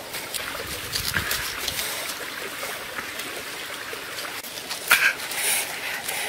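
Bamboo shoot husk sheaths being peeled off by hand: irregular tearing and rustling with scattered crackles, and a sharp snap about five seconds in.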